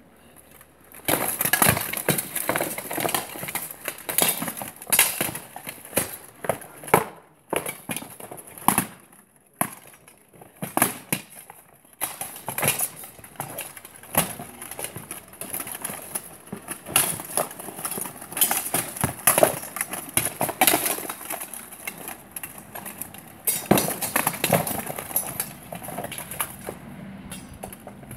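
Steel swords and plate armour clashing in an armoured fight: rapid, irregular metallic strikes and clanks starting about a second in, with the rattle of armour plates as the fighters close and grapple.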